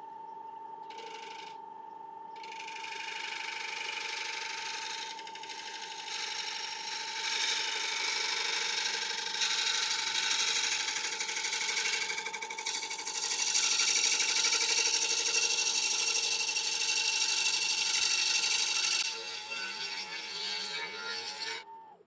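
Wood lathe running with a steady whine while a turning tool cuts the outside of a large, dry yew bowl blank. The cutting hiss comes in stretches from about two seconds in, broken by short pauses. Near the end the lathe stops and the sound cuts off.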